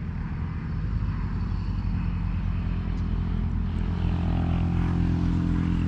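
A steady engine drone, a low even hum whose pitch shifts slightly about four seconds in.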